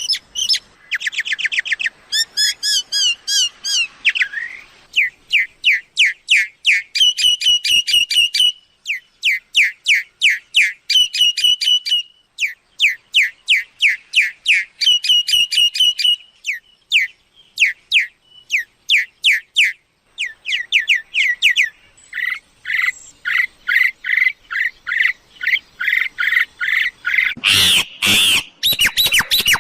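Myna calls used as a lure for decoy trapping: quick series of whistled, down-slurred chirps repeated in bursts, with a few loud harsh squawks near the end.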